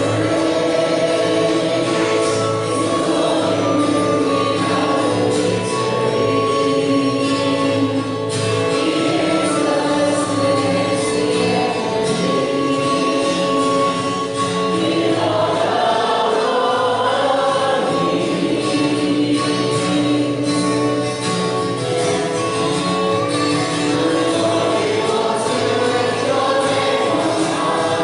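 A choir singing a worship song over instrumental accompaniment.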